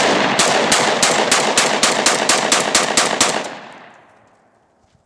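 Saiga 12 semi-automatic 12-gauge shotgun fired in a fast string, about four shots a second for some three and a half seconds. The last report fades away over the following second.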